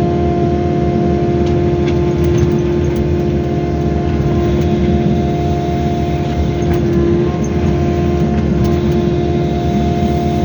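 Excavator's diesel engine running steadily at working speed, with a steady whine over it, as the machine scrapes back soil with its bucket.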